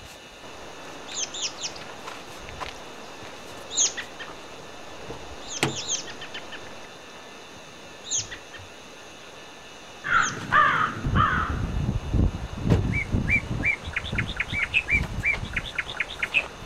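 Wild birds calling: short, high chirps every couple of seconds, then a fast run of repeated chirps near the end. About ten seconds in, a louder low rustling and scuffing starts.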